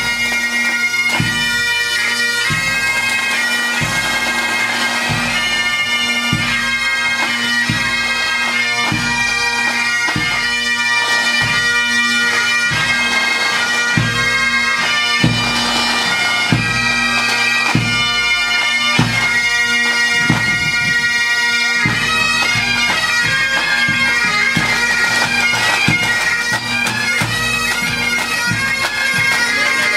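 Scottish pipe band playing: Highland bagpipes sounding a tune over their steady drone, with a bass drum beating a regular pulse that stops about two-thirds of the way through while the pipes play on.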